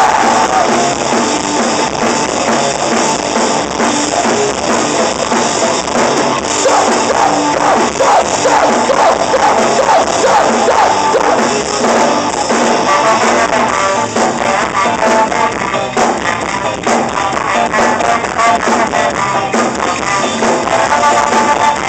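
Ska-punk band playing live at full volume: electric guitar, bass guitar and drum kit, with a trombone.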